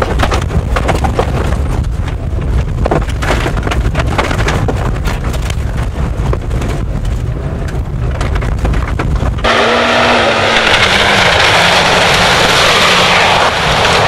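Nissan Pulsar GTI-R rally car's turbocharged SR20DET engine heard from inside the cabin, running hard on a rough gravel stage, with many sharp knocks and stones rattling against the body. About nine and a half seconds in it cuts to the car heard from outside, its engine note falling as it drives off spraying gravel.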